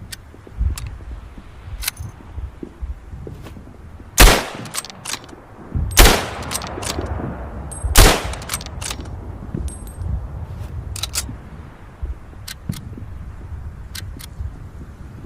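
Mauser Gewehr 98 bolt-action rifle firing three loud shots about two seconds apart, each with a trailing echo. Fainter sharp clicks and cracks come before, between and after the shots.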